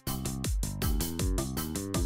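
Electronic background music with a steady kick-drum beat and pitched synth notes.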